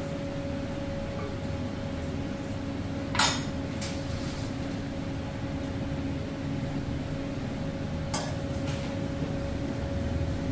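A few sharp metallic clinks of copper serving bowls being handled and set down on a metal grill grate, the loudest about three seconds in, over a steady kitchen hum.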